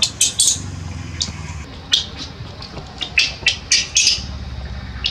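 Baby macaque giving short, high, harsh squeaks in quick clusters, a few near the start and a run of five or so around three to four seconds in: the distress calls of an infant when its mother walks off.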